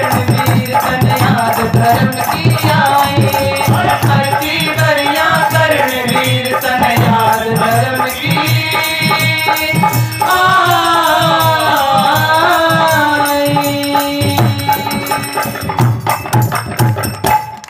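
Live bhajan: a woman singing to harmonium, with a dholak drum beating a steady rhythm and sharp hand-percussion strikes keeping time. The music stops just before the end.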